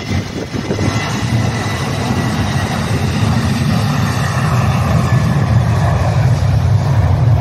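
Twin CFM56 turbofan engines of a Boeing P-8A Poseidon running at taxi power as the jet rolls along the runway. A steady low rumble with a faint high whine that gradually grows louder.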